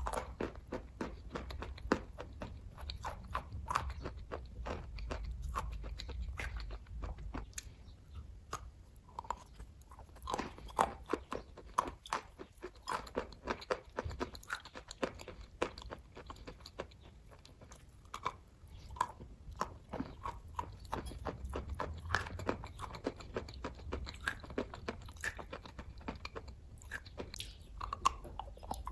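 Close-up chewing of kaju katli (cashew fudge), a steady run of many short, irregular mouth clicks and smacks.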